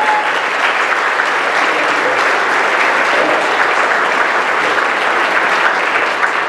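A large audience of a few hundred applauding: dense, steady clapping that holds at an even level throughout.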